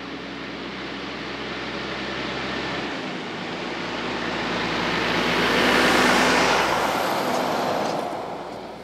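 Peterbilt 379 semi-truck with a 500 hp Cat C15 Acert diesel, pulling a container trailer, drives past: the engine note and tyre noise build as it approaches, are loudest about six seconds in as it goes by, then fade as it moves away.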